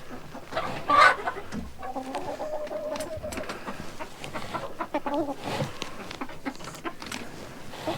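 Laying hens clucking, with a sharp squawk about a second in and a drawn-out call soon after.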